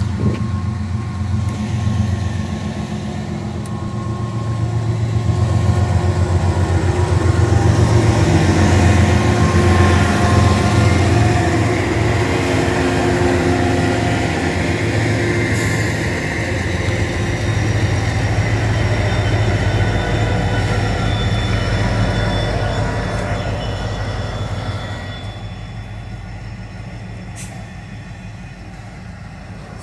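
Norfolk Southern freight train's diesel locomotives running by, a deep engine rumble that swells to its loudest about eight to eleven seconds in and fades near the end. A thin, high steady wheel squeal comes in about halfway.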